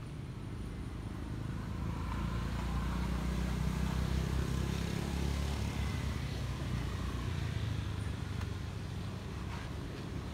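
A motor vehicle's engine rumble swelling and then fading as it passes.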